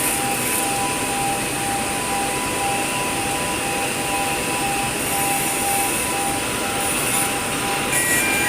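Steady hissing noise of automatic pipeline welding, with two thin tones near each other in pitch sounding on and off in turn.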